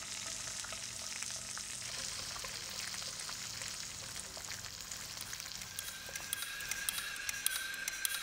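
Egg and sausage frying in a cast-iron skillet: a steady sizzle with pops and crackles that grow more frequent in the second half. A thin steady high tone comes in about six seconds in.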